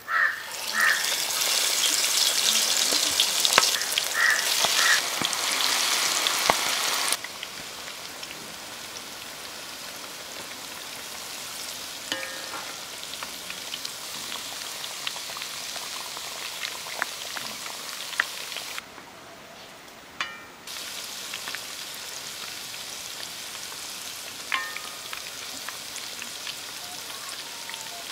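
Marinated chicken pieces deep-frying in hot oil in an iron kadai. There is a loud sizzle as the pieces go in, and about seven seconds in it drops to a steadier, quieter frying sizzle with small crackles.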